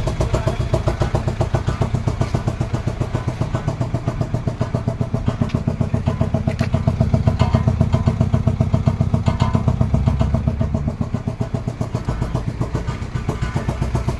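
Engine of a makeshift jugaad car running steadily with an even, rapid pulsing beat.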